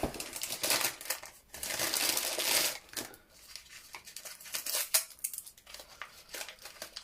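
Crinkling and rustling of a small gift bag being handled and opened, densest over the first three seconds, then quieter rustles with a few sharp clicks.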